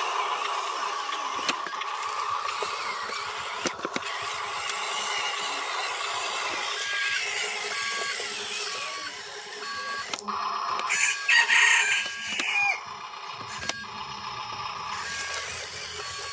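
A rooster crows loudly once, about eleven seconds in, the call ending on a falling note. Under it runs the steady whine of a Huina toy RC dump truck's electric motor and gears.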